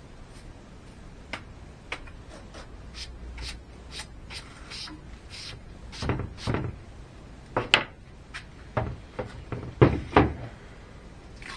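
Handling noises: a run of light clicks and taps, then several heavier knocks in the second half, as panels of acrylic and wood are moved about on the workbench.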